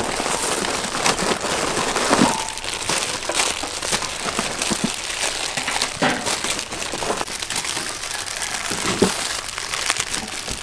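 Plastic instant-noodle packets crinkling and rustling as several hands tear them open and tip out the dry noodle blocks, a steady stream of small crackles.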